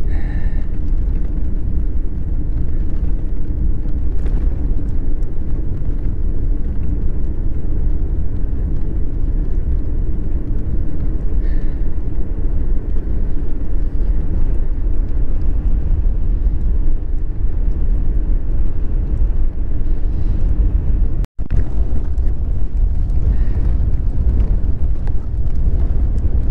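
Strong wind buffeting the microphone while cycling, a steady low rumble with no let-up; it cuts out for an instant about 21 seconds in.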